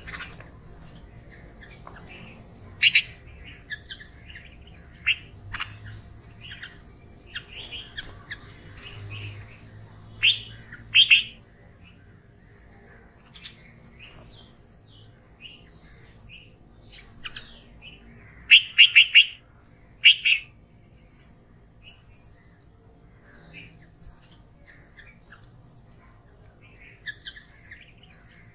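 Red-vented bulbuls and common mynas calling: scattered short chirps and squawks, with louder groups of calls about three seconds in, around ten to eleven seconds, and a quick run of several loud calls around eighteen to twenty seconds.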